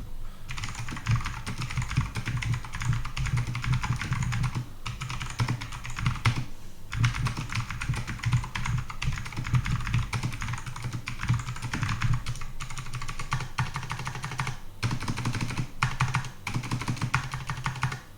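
Typing on an HP GK200 mechanical keyboard: a quick, continuous run of key clicks, quite loud, broken by a few brief pauses.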